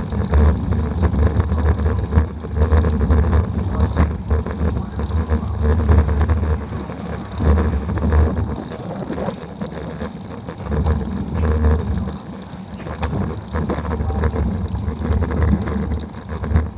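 Wind buffeting the microphone of a camera mounted on a moving bicycle: a low rumble that surges and eases, with scattered small clicks and rattles from the ride.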